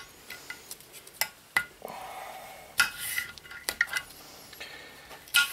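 Kitchen knife cutting potatoes on a hard cutting board: a handful of sharp, irregularly spaced clicks as the blade strikes the board.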